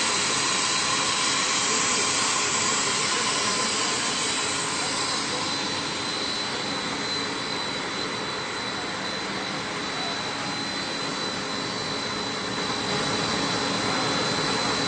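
Wire drawing machinery running: a steady whirring hiss with a thin high whine that sets in a few seconds in, growing slightly louder again near the end.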